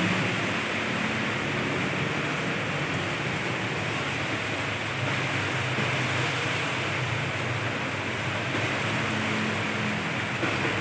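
Steady hiss of heavy rain, with vehicle engines and tyres on a wet road passing and fading.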